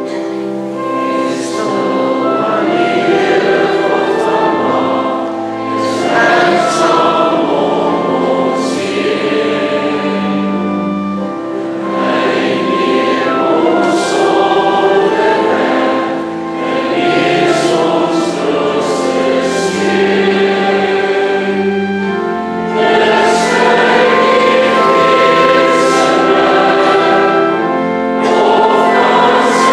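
Congregation singing an Afrikaans hymn in unison with church organ accompaniment, held organ chords sounding under the voices.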